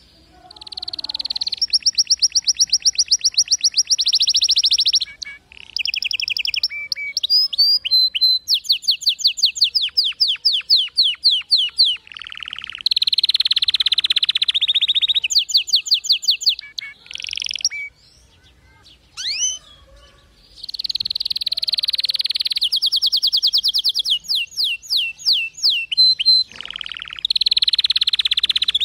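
Domestic canary singing a long, high-pitched song of rapid trills and rolls, the phrases changing every second or two, with a break of about two seconds partway through.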